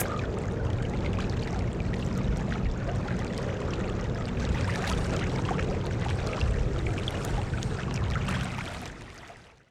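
A car driving in the rain: a steady wash of rain and wet-road tyre noise over a low rumble, with scattered drop ticks. It fades out near the end.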